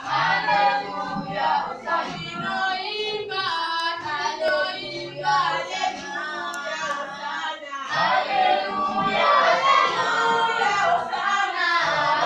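A group of voices singing a hymn together, with women's and children's voices prominent. The singing grows somewhat louder about two-thirds of the way through.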